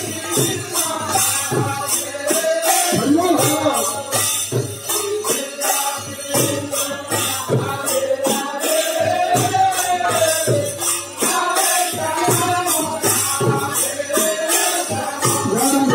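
Devotional aarti singing with rhythmic jingling percussion and a steady beat.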